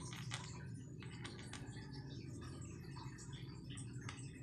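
Kitten crunching dry kibble: a quick, irregular run of small crisp crunches over a steady low hum.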